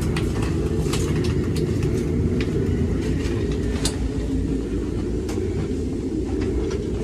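Steady low rumble inside a stationary passenger rail coach, with a scatter of sharp clicks and knocks from footsteps and luggage as people walk down the aisle and stow bags.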